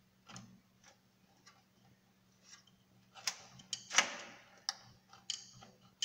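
Sharp plastic-and-metal clicks and knocks of a SATA cable connector being worked onto a hard disk's port inside a desktop computer case. A few light clicks first, then a quicker run of them in the second half, the loudest about four seconds in as the connector is pressed home.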